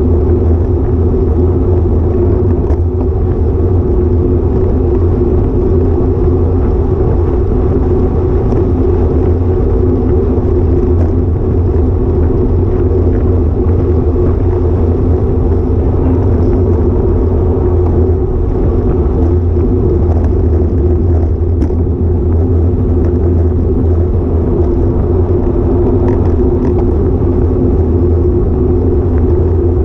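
Steady, loud rumble of wind buffeting and road noise on a bike-mounted action camera's microphone while riding a road bicycle at speed, unchanging throughout, with a few faint ticks.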